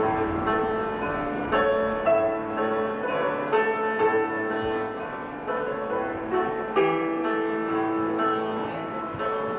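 Upright piano played solo: a melody of struck notes and chords, each ringing and then fading as the next comes in.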